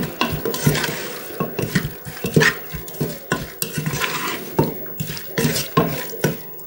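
Raw chicken pieces with oil, onion and spices being mixed by hand in a metal pot: uneven stirring strokes, two or three a second, with the food and hand knocking against the pot's sides.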